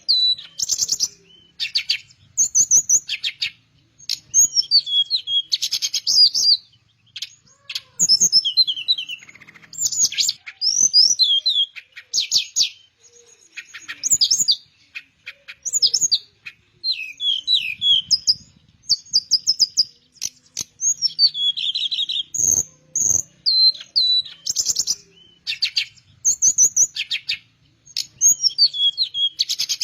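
Teledekan melayu, a flycatcher, singing in full voice: short, varied phrases of clear whistles, slurred notes and rapid trills come every second or two with brief gaps. A few faint low knocks sound in between.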